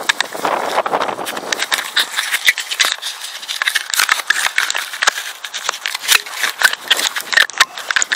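Close handling noise on an action camera: fabric rubbing and scraping over the housing, with a quick, uneven run of clicks and rattles.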